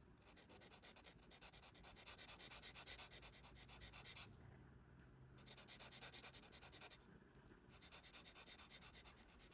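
A pick scraping packed grease from the edges of a Craftsman quarter-inch-drive boxhead ratchet, in quick scratchy strokes. There are three bouts of scraping, with short pauses about four and seven seconds in.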